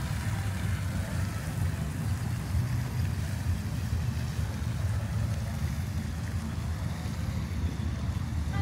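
Steady, low, fluctuating rumble of outdoor background noise with a faint hiss above it, no single event standing out.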